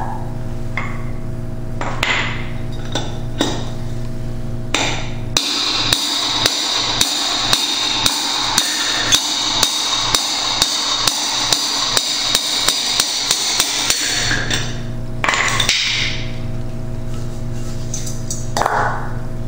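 Hammer striking a bushing driver to drive the old bushings out of a Berkeley jet pump's bowl. A few single blows come first, then a fast, even run of strikes at about three a second with a ringing tone under them for some eight seconds, then a couple more blows.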